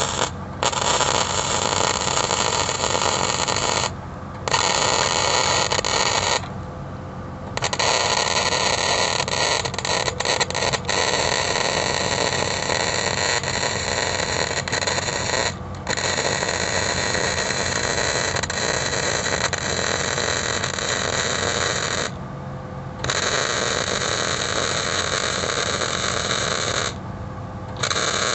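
Flux-cored wire-feed welding arc on 16-gauge stainless steel with .035 flux-core wire, crackling steadily during a downhill fill pass. The arc stops briefly about five times, each time for a second or less, and starts again.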